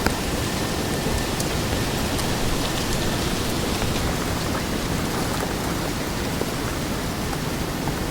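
Autumn forest ambience: a steady, even rushing noise with a few faint sharp ticks.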